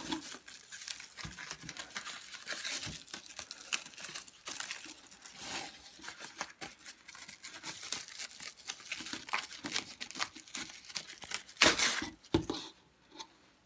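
Packaging crinkling and rustling as a part is handled and unwrapped, with a louder burst of rustling near the end.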